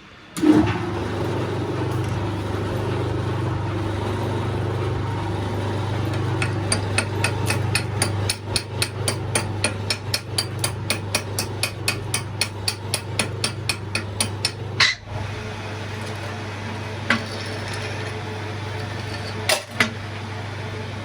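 Rapid hammer blows on metal, about four a second, from about six to fourteen seconds in, with a few single louder knocks after. Under them, a steady machine hum starts about half a second in and keeps going.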